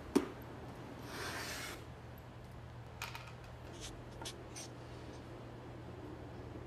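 A sharp click just after the start, a brief hiss about a second in, then faint short scratches of a felt-tip marker writing letters on a small white card.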